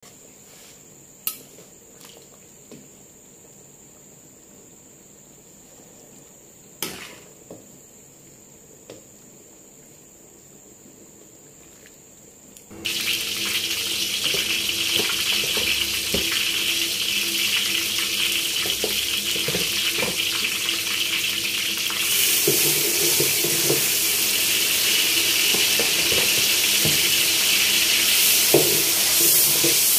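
Whole spices and curry leaves frying in hot oil in a wok: a loud, even sizzle that starts suddenly about halfway through, after a quiet stretch with a few faint clicks. The sizzle gets louder again past two-thirds of the way as blended onion, garlic and ginger paste goes into the oil, with a ladle knocking against the wok.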